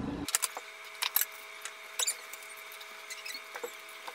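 A kitchen knife cutting a lime on a cutting board, then hands handling the lime halves: a few faint, scattered taps and clicks.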